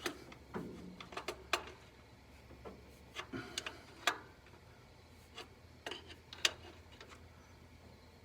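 Irregular sharp clicks and light metallic taps of a crescent wrench and fuel fittings being handled at a carburetor, about a dozen spread through, over a faint steady low hum.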